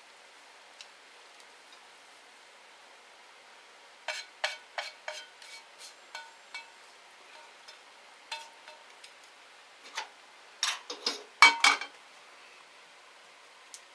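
Kitchen utensils clinking and knocking against a pan and dishes, the frying having stopped. A run of light clinks comes about four seconds in, a few more follow, and a louder cluster of knocks comes near the end.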